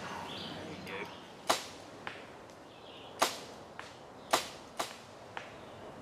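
Compound bow shots: sharp cracks of the bowstring being released, each followed about half a second later by the smack of the arrow hitting a foam 3D deer target, several times over.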